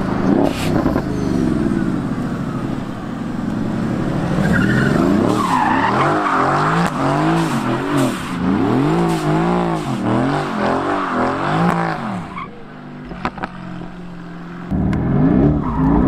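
Mercedes-AMG GT's twin-turbo V8 revving up and down again and again while the rear tyres spin and squeal as the car slides in a smoky drift. Near the end the sound drops away for about two seconds, then the engine comes back loud.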